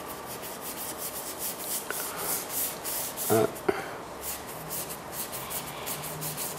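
A bristle paintbrush scrubbing paint onto a canvas on an easel, in a quick run of short rubbing strokes.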